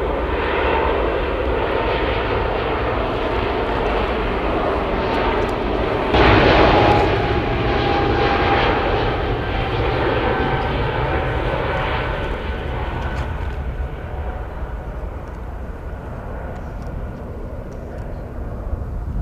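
Airbus A220-300 (Bombardier CS300) twin Pratt & Whitney PW1500G geared turbofans at takeoff power during the takeoff roll, a steady jet rush with a faint whine. A brief loudest surge comes about six seconds in. The whine then drops slightly in pitch and the sound fades as the aircraft draws away.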